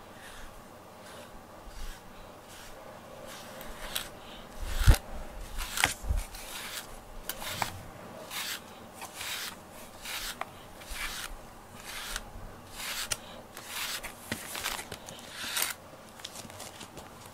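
A grooming brush drawn again and again through a cat's fur, in short scratchy strokes that come about twice a second from a few seconds in. There is a single sharp knock about five seconds in.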